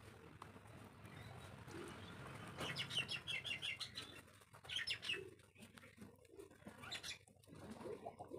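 Small bird chirping in quick runs of high notes: a long run about two and a half seconds in, then shorter bursts around five and seven seconds.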